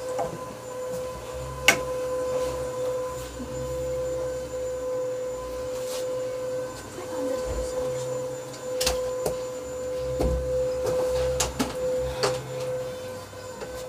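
A steady mid-pitched hum runs throughout, with sharp clicks and knocks about two seconds in and again near nine and twelve seconds in.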